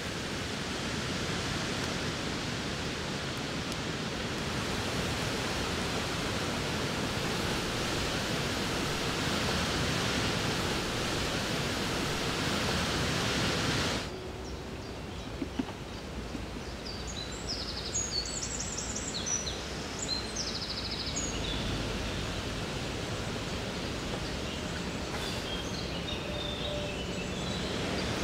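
A steady rushing noise that cuts off abruptly about halfway through. After it comes a quieter outdoor background in which small birds give short, high, rapid trills and chirps, in two spells.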